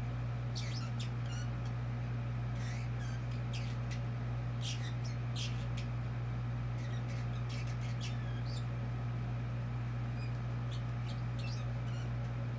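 Pet budgie chattering: a quick string of short, high chirps and clicks scattered irregularly, over a steady low hum.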